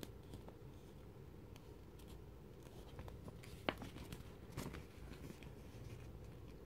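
Faint rustling and soft clicks of a paper magazine being handled and turned over in the hands, with one sharp tap a little past halfway through.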